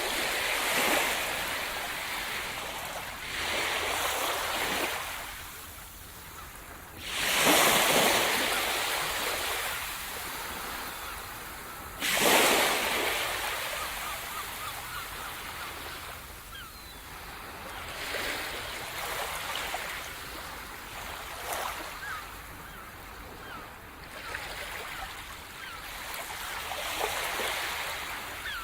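Sea surf: waves breaking on the shore and washing back, one after another every few seconds, two of them heavier than the rest.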